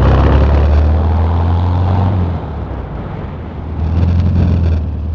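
Car engine running while driving, a loud steady low drone with road noise; the engine note drops away about two seconds in and picks up again near four seconds.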